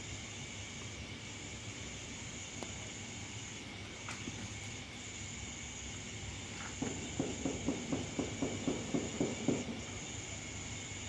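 Steady chirring of night crickets, a high-pitched insect chorus. A bit past halfway a quick run of scuffing sounds, about five a second, goes on for some three seconds and is the loudest thing.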